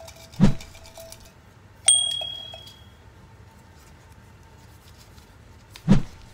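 A single bright bell-like ding about two seconds in, ringing out for about a second, between two short dull thumps.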